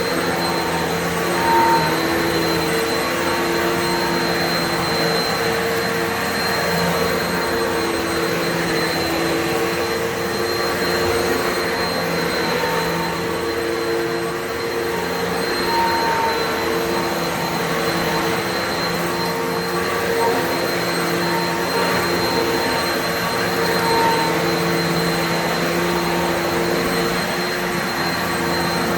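Upright vacuum cleaner running continuously as it is pushed over carpet: a steady motor drone with a thin high whine above it.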